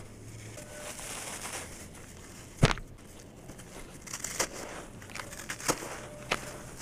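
Soft sand-cement block being squeezed and crumbled by hand in a basin of dry, dusty sand-cement grit: gritty rustling and grains pouring, with a scatter of small crunches and one sharp crack about two and a half seconds in.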